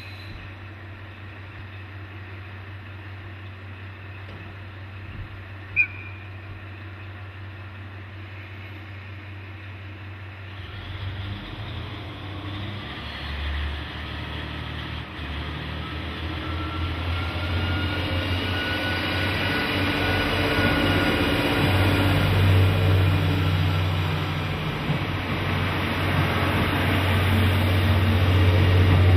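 Diesel railcar idling at a platform with a steady low hum, then its engine opening up about ten seconds in as the train pulls away, growing steadily louder with a faint rising whine as it draws near and passes. A brief sharp tone sounds about six seconds in.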